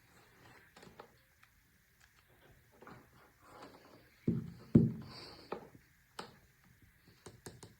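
Scattered handling noises: short clicks and knocks, with a few louder thumps about four and a half seconds in, over a faint steady high-pitched hum.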